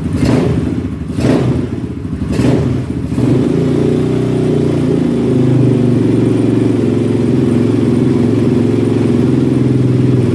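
Zongshen 250cc dirt bike's single-cylinder four-stroke engine, freshly rebuilt with a new piston, running without choke: three quick throttle blips in the first three seconds, then a steady idle.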